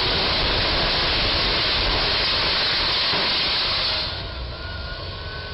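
The roof of a rental box truck's cargo box scraping and tearing against a low steel railroad bridge as the truck drives under it: a loud, steady noise for about four seconds that then falls away.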